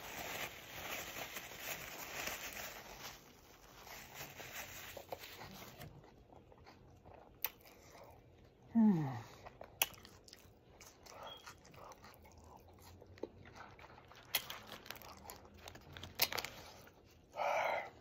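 Wet open-mouthed chewing and lip smacking on a Whopper burger, busy and crackly for the first six seconds, then sparser smacks and clicks. About nine seconds in comes one short sound that falls steeply in pitch.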